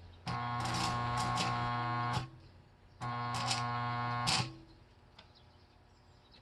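Electric arc welding: two welding runs, about two seconds and then a second and a half, each a steady electrical buzz with crackling and sputtering from the arc, stopping sharply between and after.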